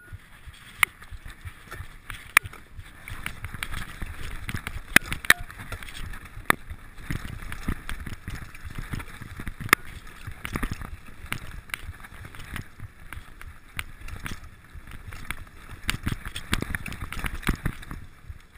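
Mountain bike riding down a dirt forest trail: tyres rumbling over the ground, with repeated sharp clacks as the bike jolts over bumps and roots.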